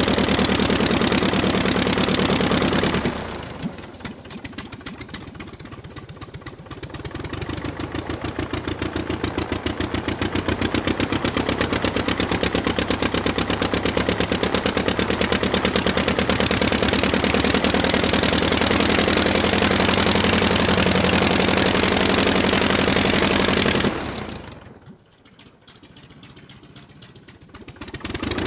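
Propeller aircraft piston engine running on the ground, a fast even firing beat. It is throttled back to a low idle about three seconds in, brought back up to a steady run a few seconds later, then throttled down again near the end before picking up once more.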